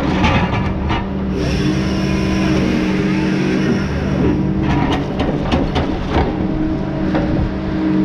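Log loader's diesel engine running under load with a steady hydraulic whine as the grapple works logs. A hiss sets in about a second and a half in and stops about four seconds in, and several sharp knocks come near the start and again around five to six seconds in.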